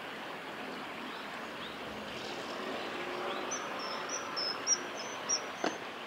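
Common kingfisher calling: a quick run of about eight short, high-pitched whistles in the second half, over the steady rush of a small river. A sharp click comes with the last whistle.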